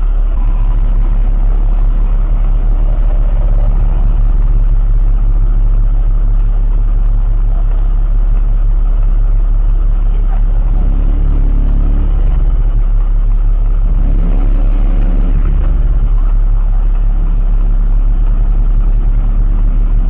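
Steady low rumble of a car engine idling, picked up inside the cabin by the dashcam microphone. Twice, about ten and fourteen seconds in, an engine note swells, rising and then falling in pitch.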